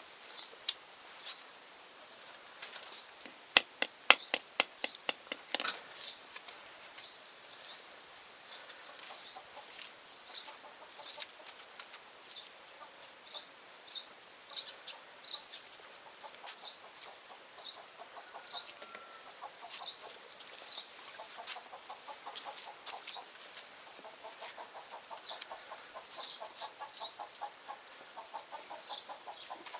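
Gascon hound puppies feeding together on a concrete floor. A quick run of sharp clicks comes a few seconds in, short high chirps repeat throughout, and a rapid low pulsing runs through the second half.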